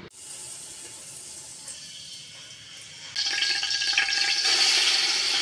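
Hot cooking oil in a pot sizzling as ginger-garlic paste is tipped in: a quieter hiss jumps to a loud, bright sizzle about three seconds in and keeps going.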